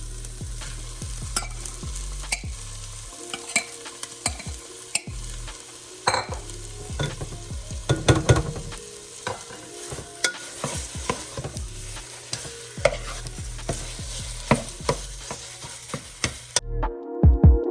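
Ground chicken frying with onions and garlic in hot oil in a pot, sizzling while it is stirred, with frequent light clicks and scrapes of the utensil against the pot. About a second before the end it cuts abruptly to background music with a pulsing bass.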